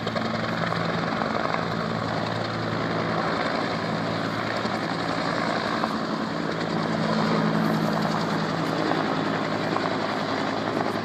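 Helicopter rotor and engine running steadily, a little louder about two-thirds of the way through.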